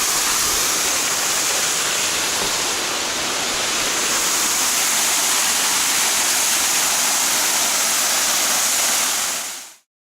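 Steady, loud rushing of running water from a creek or small cascade, cutting off abruptly near the end.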